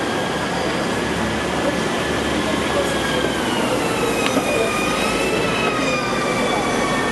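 Steady background din of a busy place, with faint high whining tones that slowly drift in pitch, like distant rail or machinery noise.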